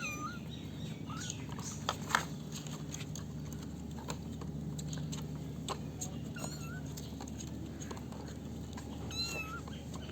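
Kittens mewing: a handful of short, wavering mews spread through, with a couple of sharp clicks about two seconds in, over a steady low hum.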